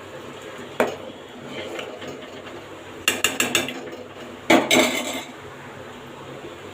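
A metal spoon clinking against a cooking pot during stirring. There is one knock about a second in, a quick run of clinks around three seconds, and a louder clatter a little before five seconds.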